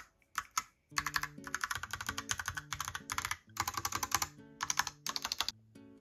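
Logitech POP Keys mechanical keyboard being typed on: quick runs of key clicks in two long bursts, stopping shortly before the end.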